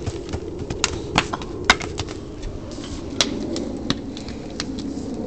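Wood fire burning in a perforated metal fire basket, crackling with irregular sharp pops over a steady low background.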